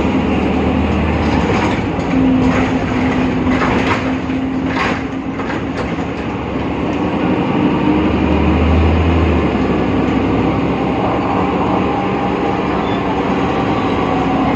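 BredaMenariniBus Avancity Plus city bus with a ZF gearbox running, a steady drone with a held tone and, about a second to five seconds in, a run of sharp clicks and rattles.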